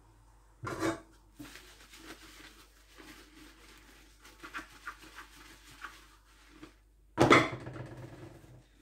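Dishwashing by hand: a soapy sponge scrubbing a glass jar in a stainless-steel sink, with small scattered knocks and clinks of glassware and a louder clatter about seven seconds in.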